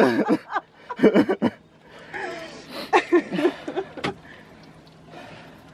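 A man laughing in several short bursts, breathless and broken by pauses.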